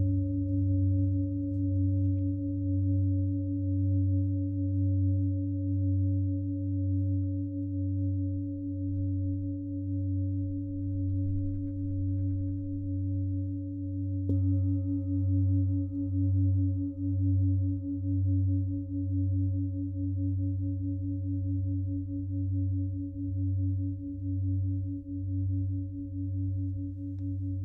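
Singing bowls ringing in a sustained, slowly pulsing drone of several steady tones. About halfway through, another bowl is struck and adds a higher ringing tone above the drone.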